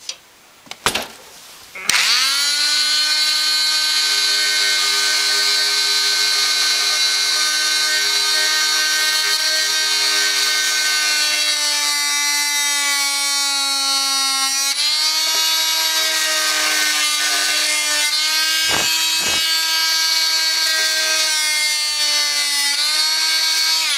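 Renovator oscillating multi-tool switched on about two seconds in, its blade plunge-cutting into a wooden board with a steady, high buzz. The pitch steps up slightly partway through and dips briefly twice near the end as the blade bites into the wood.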